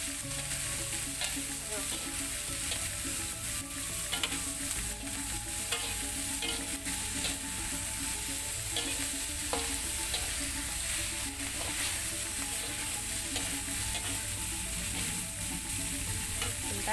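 Tempe and petai sizzling in hot oil in a wok while being stir-fried, the spatula scraping and clicking against the pan at irregular moments over a steady sizzle.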